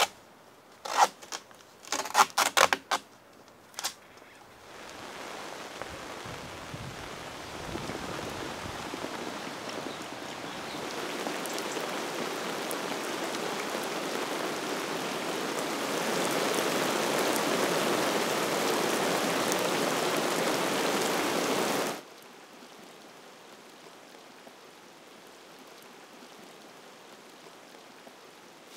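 A few sharp knocks in the first seconds, then steady rain falling on pond water and plastic pond liner, growing heavier and dropping suddenly to lighter rain about three quarters of the way through.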